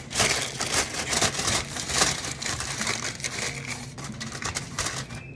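Rapid, irregular clatter and scraping of cooking work at the stove, over a low steady hum.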